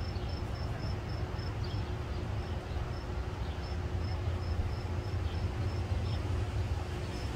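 A cricket chirping steadily, short high chirps about four a second with a few brief pauses, over a low steady rumble.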